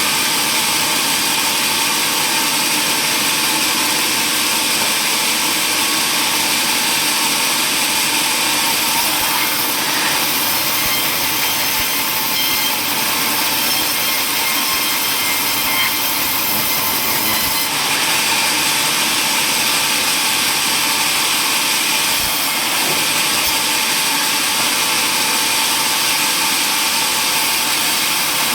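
Power saw running steadily through wood, a loud, even cutting noise that stays high-pitched and does not let up.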